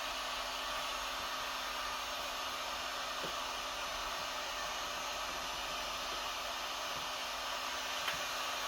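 Electric heat gun running steadily, a continuous rush of blown air with a steady low hum, blowing hot air to warm the headliner glue.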